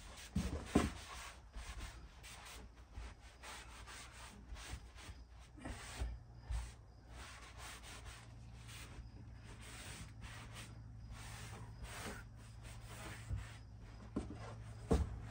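Hand scrubbing a grimy surface with a cleaning cloth: irregular rubbing strokes, with a few sharper knocks near the start and again near the end.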